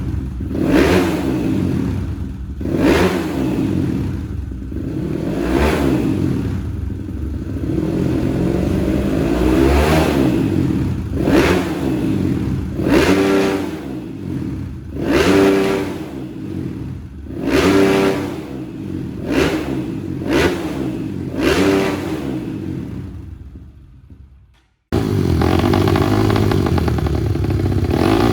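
Four-stroke trail motorcycle engine revved in repeated throttle blips, one about every two seconds, that die away near the end. Another engine then cuts in abruptly, running at fairly steady revs.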